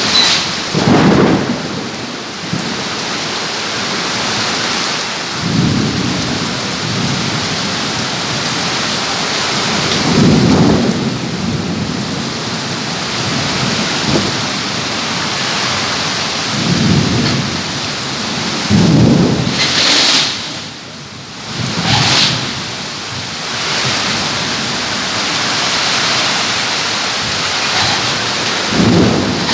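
Heavy rain pouring steadily in a thunderstorm, with low rumbles of thunder swelling up every few seconds.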